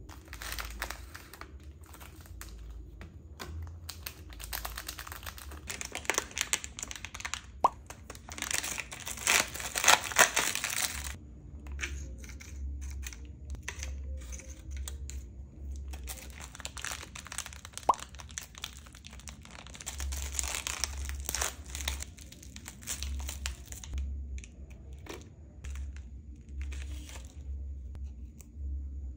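Snack packaging being torn open and crinkled in the hands, in bursts, loudest about a third of the way in, with light taps as round crackers and a wafer are set on a clear plastic plate.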